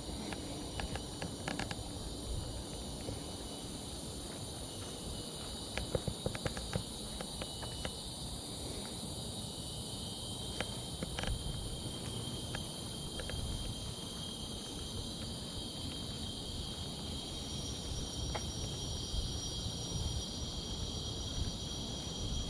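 Steady high-pitched chorus of forest insects, several shrill tones held at once, over a low rumble, with scattered sharp clicks, a quick run of them about six seconds in.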